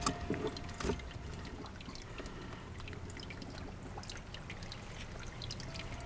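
Water trickling and dribbling steadily as a shallow tank of aquarium water drains low, with a few light knocks in the first second.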